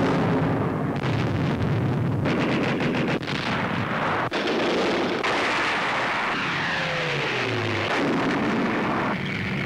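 Tank gunfire and shell explosions going off in quick succession, about a second apart, over the continuous rumble of moving tanks, on an old film soundtrack. A falling whine sounds about two-thirds of the way through.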